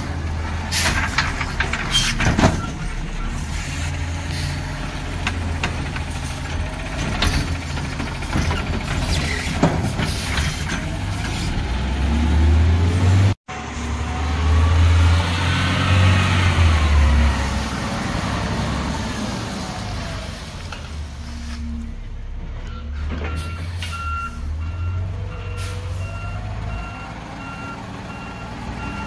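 Garbage truck's diesel engine running, with sharp knocks and air hisses in the first ten seconds and the engine revving louder around the middle, broken by an instant's dropout. From about three-quarters of the way through, a reversing alarm beeps steadily as the truck backs up.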